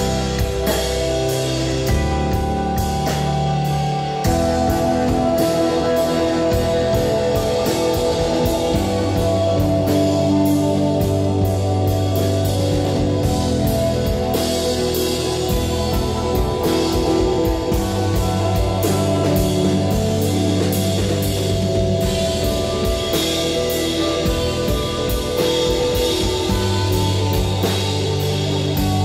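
Instrumental rock trio playing live: electric guitar, bass guitar and drum kit, with regular drum and cymbal hits under sustained guitar and bass notes. The playing gets fuller and slightly louder about four seconds in.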